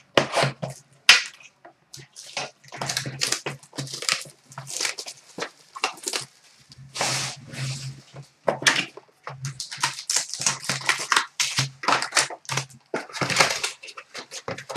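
A sealed hockey card box being cut open and unpacked: its plastic wrapper crinkles and the cardboard rustles, scrapes and taps, in a run of irregular short bursts.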